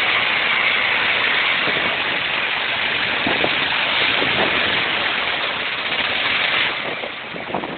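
Dual-sport motorcycle under throttle with its rear wheel spinning in a muddy creek bed, churning water and mud in a steady rushing noise that eases near the end. The bike is stuck and the spinning wheel is digging itself a hole.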